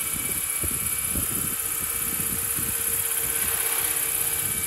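Radio-controlled scale Bell 412 model helicopter hovering: its four-blade main rotor beats steadily over a constant high whine from the drive.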